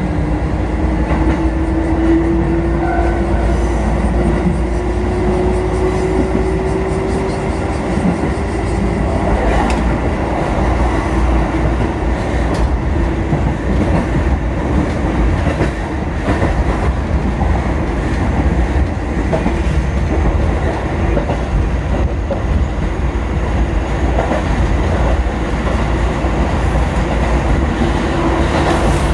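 Kotoden four-car electric train (1080 and 1100 series) running on the line, with a steady low rumble and a motor hum that rises slowly in pitch over the first nine seconds or so as it picks up speed. The wheels click now and then over rail joints.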